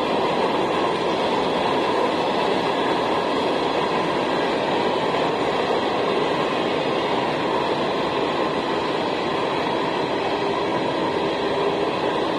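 CSX freight train's loaded open-top hopper cars rolling past a grade crossing at speed, a steady unbroken rumble of wheels on rail.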